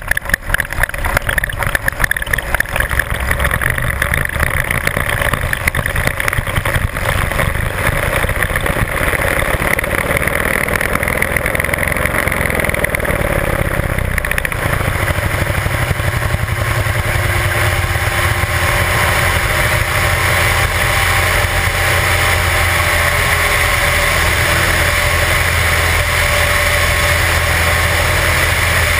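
Light aircraft's piston engine and propeller running in cruise flight, under loud wind rush over a camera mounted outside in the slipstream. The wind buffeting is gusty at first and settles about halfway, leaving a steadier engine drone.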